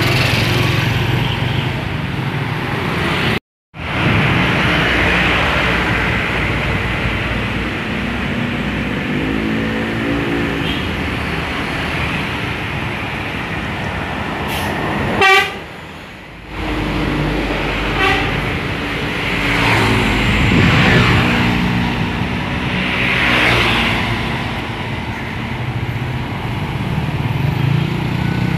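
Indonesian intercity bus 'telolet' horn, a multi-tone musical horn, playing short tune phrases over engine and traffic noise: once about ten seconds in and again, longer, from about eighteen to twenty-four seconds in.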